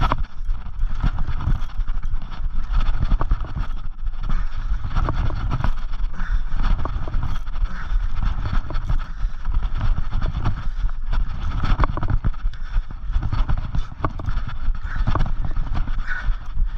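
Wind buffeting the camera microphone, mixed with the irregular clicking and scraping of a large Shimano Twin Power saltwater spinning reel being cranked under the load of a hooked fish.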